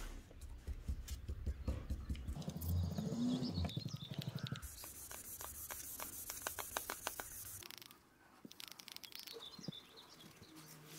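Birds calling in an outdoor nature ambience, with a quick run of short ticks in the middle.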